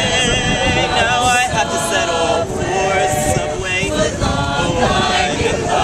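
Mixed a cappella vocal group singing in harmony, several voices holding notes with a wavering vibrato.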